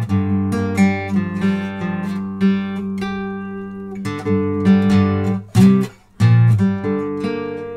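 Solo acoustic guitar, plucked notes and strums ringing over a steady low bass note, with a brief break about six seconds in.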